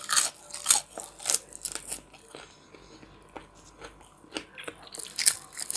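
A person biting and chewing fried chicken close to the microphone: a string of short crunches and mouth clicks. They are loudest in the first two seconds and again about five seconds in.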